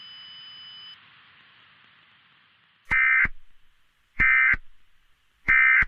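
Emergency Alert System end-of-message signal: three short, identical bursts of buzzy, screeching SAME digital data tones, evenly spaced a little over a second apart, starting about three seconds in. A faint hiss lies underneath, with a thin high tone that stops about a second in.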